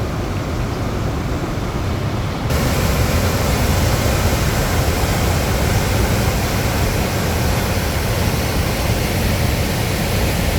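Kicking Horse River rushing through the rock channel under the Natural Bridge: loud, steady white water, getting louder about two and a half seconds in.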